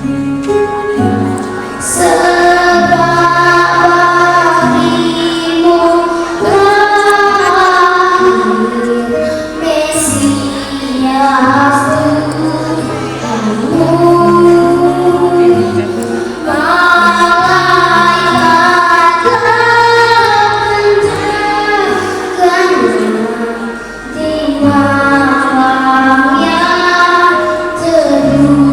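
A child singing a solo song in long phrases, over a steady instrumental accompaniment.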